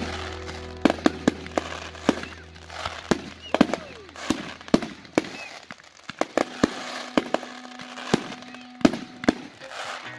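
Fireworks display going off in quick, irregular bangs and crackles from cakes, fountains and low aerial bursts.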